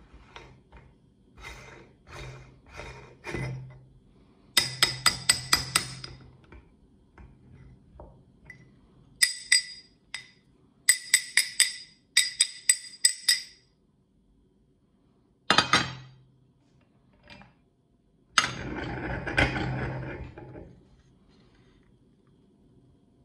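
Metal parts of a hand-cranked meat grinder clinking as it is taken apart: the perforated grinder plate and its ring give quick runs of sharp, ringing metallic clicks, with a single knock after them. Near the end comes a rustle of dry ground cookie crumbs worked between the hands.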